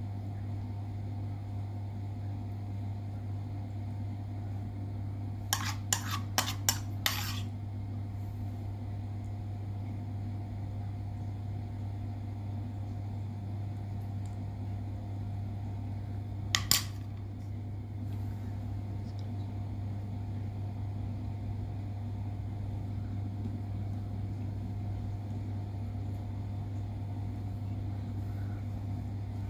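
Sharp clinks of a metal spreading knife: a quick run of about five, then a pair some ten seconds later, over a steady low hum.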